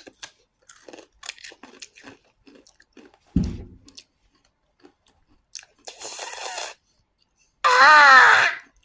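Takis rolled tortilla chips being bitten and chewed: a run of short crisp crunches, with a low thump about three and a half seconds in. Near the end comes a breathy hiss, then a loud drawn-out vocal exclamation.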